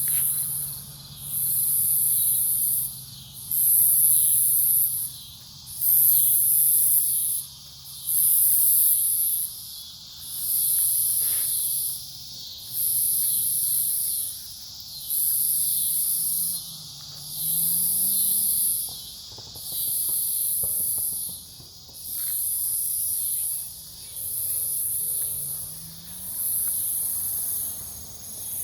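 Night insect chorus, which the uploader takes for cicadas: a loud, very high-pitched buzzing call swells in long pulses about every two seconds, each lasting around a second and a half. Under it runs a steadier, lower chirring from other insects.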